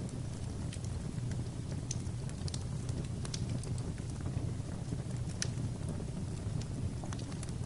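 Fire burning in a fireplace: a steady low rumble with irregular sharp crackles and pops scattered throughout.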